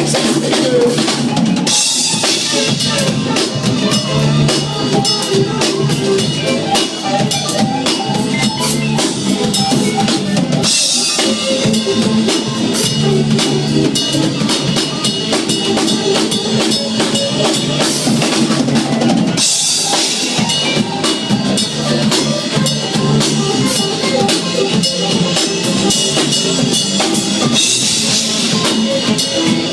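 Live band playing an instrumental break with no vocals, the drum kit to the fore: steady beat on kick and snare with cymbal crashes, over bass and other instruments.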